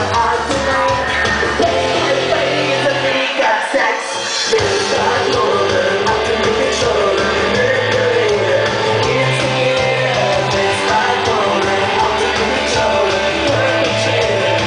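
Loud music with a singing voice over held bass notes, played through a venue's sound system during a sound check; the bass drops out for about a second between three and four seconds in.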